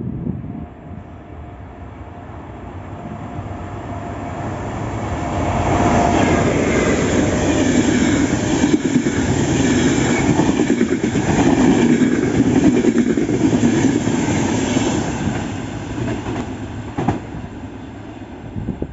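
A train passing through a station on the line. The rumble and wheel noise build over the first few seconds, stay loud for about ten seconds as the train goes by, then fade.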